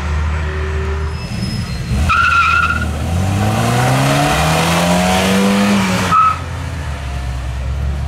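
Car engines on a hillclimb course: a steady low engine note, then a brief tire squeal about two seconds in. Then a classic Volkswagen Passat coupé's engine revs up hard as it accelerates away from the start, its pitch rising steadily for about three seconds before cutting off abruptly.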